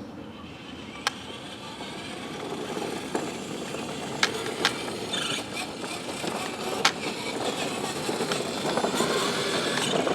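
Child's battery-powered ride-on toy car driving, its electric motor running and plastic wheels rolling on the ground. It grows louder as it comes closer, with a few sharp clicks.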